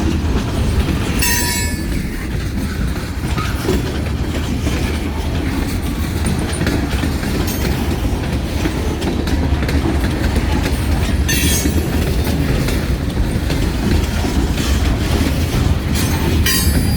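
Freight train rolling past: a steady, loud rumble of steel wheels on rail, with brief high-pitched wheel squeals about a second in, around the middle and near the end.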